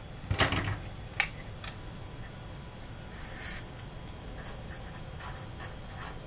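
Felt-tip Sharpie marker drawing and writing on paper: faint scratchy pen strokes, with a sharp click about a second in.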